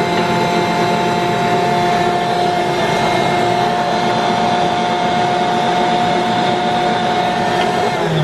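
Electric stand mixer motor running steadily with a high whine while dough ingredients are mixed; near the end the whine slides down in pitch as the motor slows.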